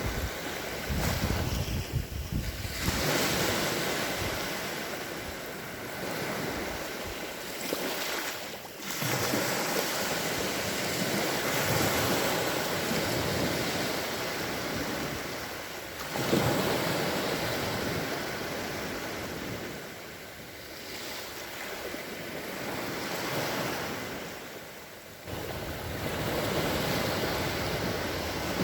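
Small sea waves washing onto the shore, the surf swelling and easing every few seconds, with some wind buffeting the microphone.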